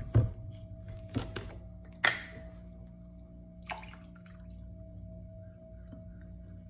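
Plastic orange juice bottle handled and opened, with a few sharp knocks and clicks in the first four seconds, then orange juice pouring into a drinking glass.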